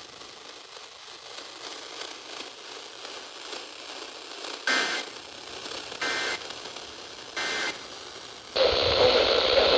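Emergency Alert System end-of-message: three short digital data bursts about 1.3 s apart over steady radio hiss, marking the close of a severe thunderstorm warning. Near the end the audio cuts suddenly to louder, hissier radio reception.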